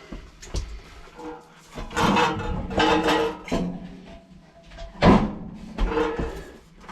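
Background music with held notes, with a few sharp knocks; the loudest knock comes about five seconds in.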